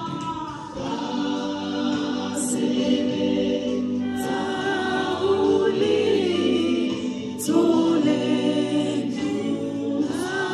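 Background music: a choir singing gospel music in sustained, held phrases.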